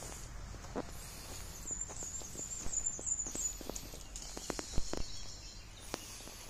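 Footsteps crunching irregularly over a forest floor of dry conifer needles and twigs, with a louder crack just before five seconds in. A high, warbling bird call runs for about two seconds early on.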